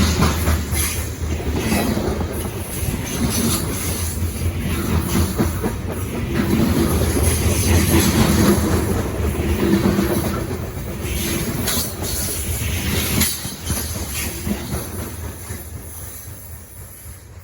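Loaded grain train's freight cars rolling past with a steady rumble and occasional clicks of wheels over rail joints. The sound fades away over the last few seconds as the train moves off.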